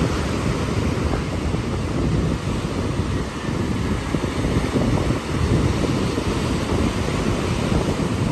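Ocean surf washing ashore in a steady wash of noise, with wind buffeting the microphone.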